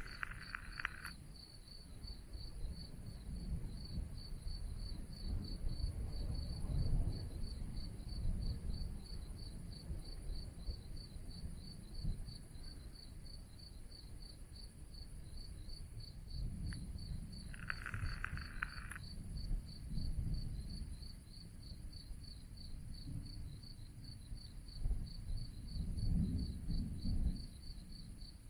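Crickets chirping in a steady, rapid pulse, while low rumbles of distant thunder swell and fade three times. A brief higher-pitched sound comes twice, at the start and about two-thirds of the way through.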